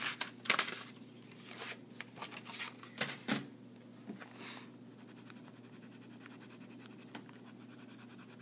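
Colouring in on a paper worksheet: quick, scratchy back-and-forth strokes across the paper, with a few sharper knocks and rustles of the hand and page in the first four seconds or so, then a steady, faint scratching.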